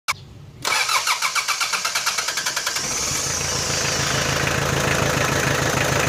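Mitsubishi 4D56 2.5-litre four-cylinder diesel engine starting: a click, then about two seconds of rapid, even cranking pulses, after which it catches and settles into a steady idle.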